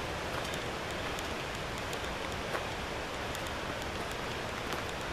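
Footsteps crunching through dry leaf litter on a forest trail, heard as scattered light crackles over a steady rushing hiss.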